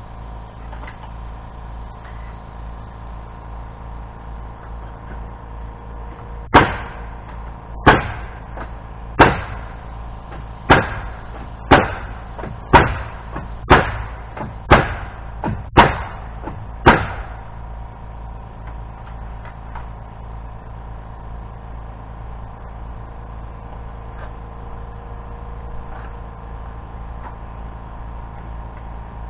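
Hammer driving nails into wooden framing: about a dozen sharp strikes, roughly one a second, over ten seconds, then stopping, over a steady low hum.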